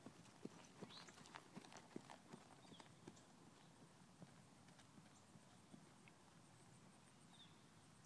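Hoofbeats of a ridden horse on a dirt track, close at first and fading as it moves away, the footfalls thinning out after about three seconds. Faint overall.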